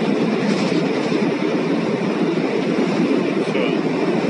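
Steady jet engine and cabin noise heard inside an airliner on the ground: an even, low rumble with a faint hum, no change in level.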